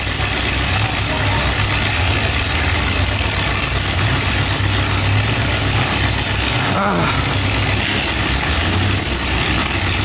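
Several demolition derby cars' engines running together, idling and revving in a loud, dense, steady rumble.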